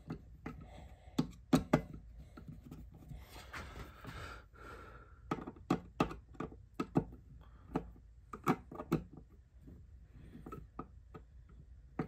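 Screwdriver turning a small screw into the brass end cap of a muzzleloading rifle's stock, giving irregular sharp clicks and knocks, a couple of dozen in all. A soft rushing noise runs for about a second and a half a few seconds in.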